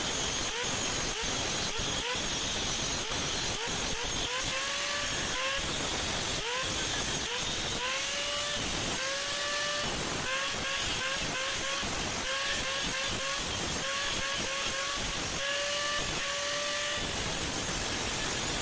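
Blacksmith's metalwork on a sickle: many sharp knocks, with a short rising tone that levels off repeating about once or twice a second, over a steady hiss.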